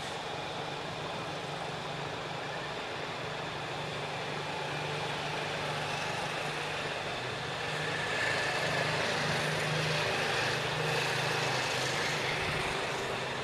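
A vehicle engine running steadily under a wide hiss of background noise, growing louder about eight seconds in.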